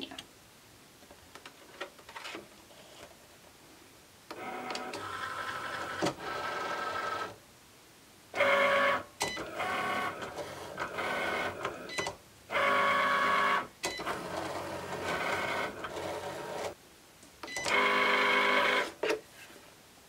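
Cricut Explore Air 2 electronic cutting machine cutting felt: its motors whir with a pitched whine in stretches of one to several seconds, stopping and starting as the blade carriage and rollers move the mat. A few faint clicks come before the motors start, about four seconds in.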